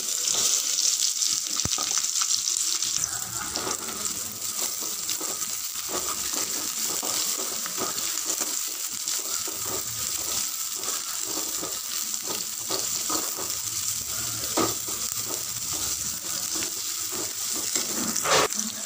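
Sliced onions tipped into hot oil in an aluminium pan, sizzling steadily as they fry. A metal slotted spoon stirs them, scraping and clinking against the pan many times.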